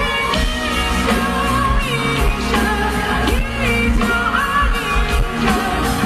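Live pop song: a man singing into a microphone over full band backing, amplified through the stage sound system.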